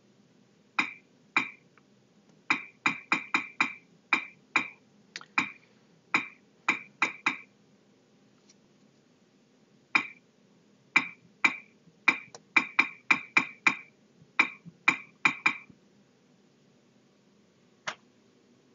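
Key taps on a large interactive touchscreen's on-screen keyboard, sharp clicks with a short bright ring, about thirty in all. They come in two quick runs of typing with a pause between, then a single tap near the end.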